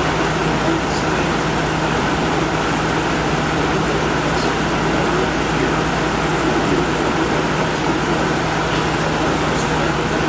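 Window air conditioner running with its fan on high and its compressor on: a loud, steady rush of air over a constant low hum. The compressor is running continuously and does not cycle off.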